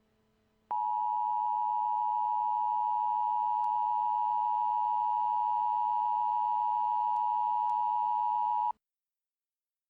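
Emergency Alert System attention signal: two steady tones close in pitch sounded together as one harsh beep, held for about eight seconds. It starts about a second in and cuts off abruptly, announcing that an emergency alert message follows.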